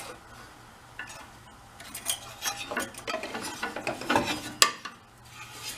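Light metal clinks, scrapes and rattles of hand tools and loose metal parts being handled on a small engine during teardown, with a sharper click about four and a half seconds in.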